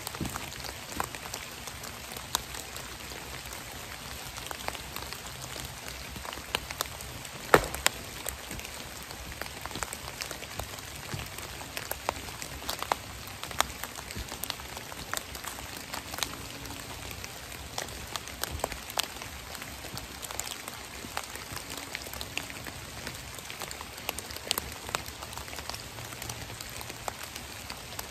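Rain falling on dead leaves: a steady hiss with many scattered sharp drop hits, one much louder about seven and a half seconds in.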